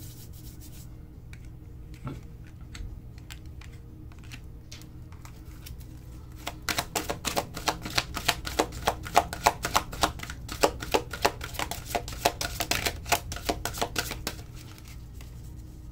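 A deck of tarot cards being shuffled by hand: a few scattered card clicks, then a dense run of rapid, irregular clicks for about eight seconds that stops shortly before the end.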